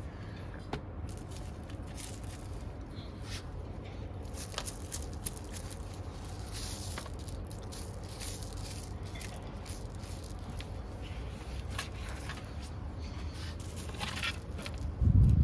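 Small handling noises, light scrapes, rustles and crackles, over a steady low hum, with one heavy low thump near the end.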